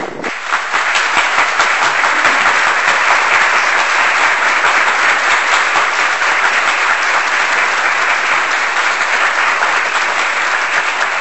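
Applause: a crowd clapping steadily.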